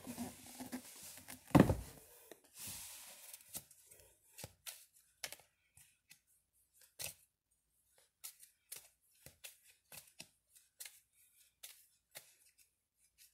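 A book set down with a knock on a bookshelf about a second and a half in, followed by a short rustle. After that come scattered light clicks and rustles of handling.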